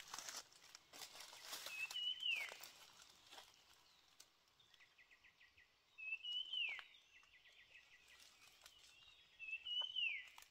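A bird whistles the same short call three times, about four seconds apart: a brief high note, then a quick falling slide. Dry leaves crunch underfoot at the start, and a quick run of faint ticks comes about five seconds in.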